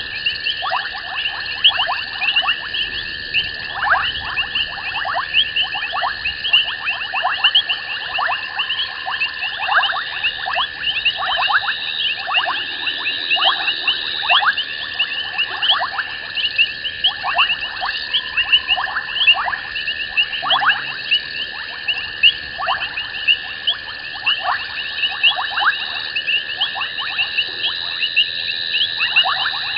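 Night chorus of frogs and insects at a waterhole: a steady high-pitched trill under a dense run of rapid chirps, with frequent short calls that slide down in pitch.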